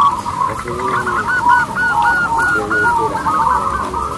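Many zebra doves (perkutut) cooing at once: their overlapping, repeated coos run together into a continuous chorus.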